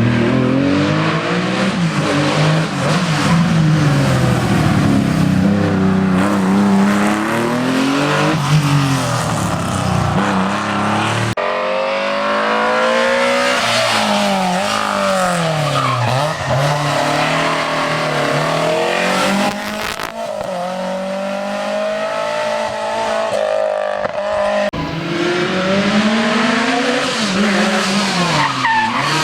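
Historic rally cars driven hard on a stage, their engines revving up and dropping back repeatedly through gear changes. The sound cuts abruptly three times, giving four separate passes.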